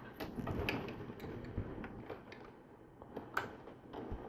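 Faint, scattered clicks and taps of LEGO plastic being handled as a minifigure is pushed into place in the model; the loudest click comes about three and a half seconds in.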